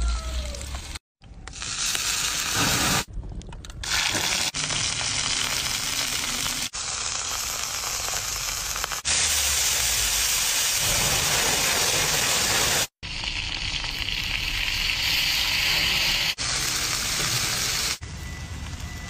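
Seafood sizzling and frying in oil on a hot stone slab (octopus, shellfish and razor clams), a steady hiss in short stretches that break off abruptly every few seconds.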